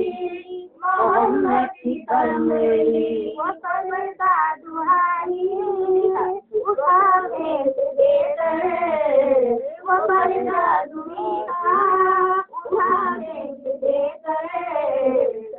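A high, young-sounding solo voice singing a naat, a devotional song, in long melodic lines. The notes glide and waver, some are held for a second or more, and there are short breaths between phrases.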